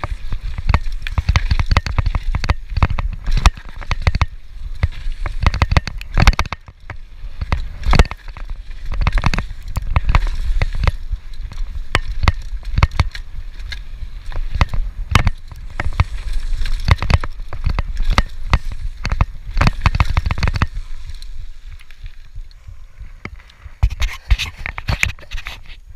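Norco Shore 2 full-suspension downhill mountain bike rattling and clattering at speed over a rough forest trail: tyres on dirt and a dense run of sharp knocks from chain, frame and suspension over a low rumble, heard from a chest-mounted camera. It eases off about 21 seconds in, then a few more sharp knocks near the end.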